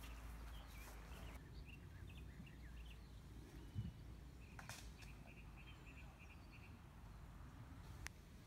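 Near silence with small birds chirping: scattered short chirps, then a quick run of about six notes about five seconds in. A dull thump comes a little before the four-second mark, and a sharp click near the end.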